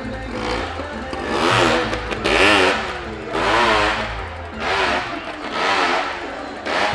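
Motorcycle engine revving up and down several times inside a well-of-death pit.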